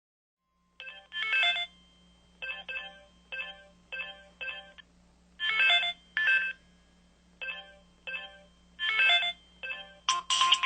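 Effect sounds of an MS600 device played one after another through its small built-in speaker while the sound setting is previewed: a string of short electronic beeps and chimes, each under half a second. A louder, fuller tune starts near the end.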